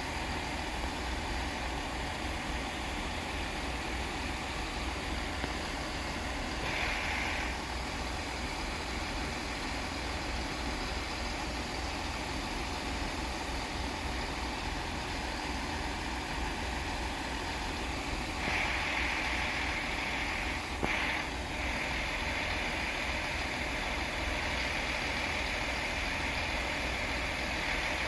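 Class 165 diesel multiple unit's engine running steadily at idle. A higher hiss joins briefly about seven seconds in, and again from about eighteen seconds on.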